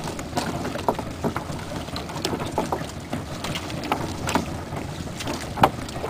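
Wet fishing net hauled by hand over the gunwale of a small wooden boat: scattered short splashes, drips and light knocks against the hull, over steady wind and water noise.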